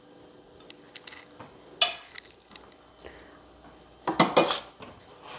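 Metal tongs and a foil-lined baking sheet being handled: a few light clicks, a sharp clack about two seconds in, and a rattling clatter about four seconds in.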